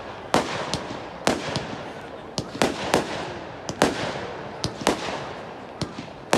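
Aerial fireworks bursting: a string of sharp bangs, about a dozen at irregular intervals, each trailing off in an echo.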